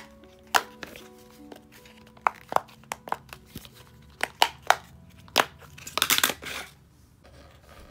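Silicone bubbles of a simple dimple fidget toy popping as they are pressed in one at a time: about a dozen sharp pops at uneven spacing, with a quick rattling flurry about six seconds in. Faint background music plays underneath.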